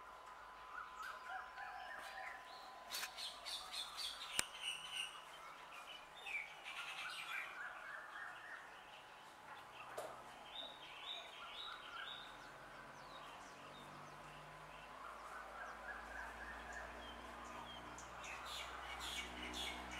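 Birds singing faintly in the background, repeated runs of short chirps that climb in pitch. A few sharp clicks come about three to four seconds in, and a faint low rumble builds near the end.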